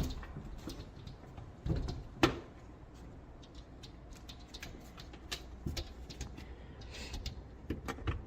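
Scattered light knocks and clicks over a low background rumble, the loudest knock about two seconds in.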